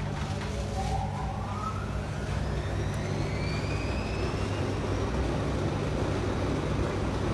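Large JLA commercial washing machine running: a steady low motor hum with a whine that rises in pitch over about four seconds as the drum motor speeds up.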